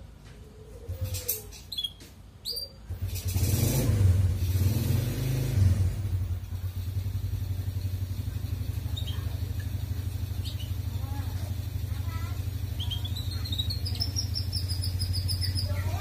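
A few clicks, then an engine comes on loudly about three seconds in and settles to a steady low idle. Over it a canary gives scattered chirps and, near the end, a rising run of high notes.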